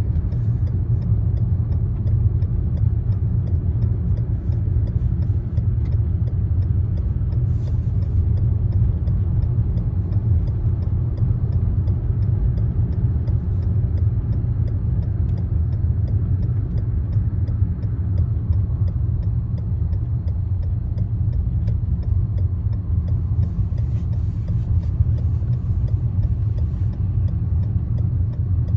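Car driving steadily, with a constant low road and engine rumble and faint, regular ticking throughout.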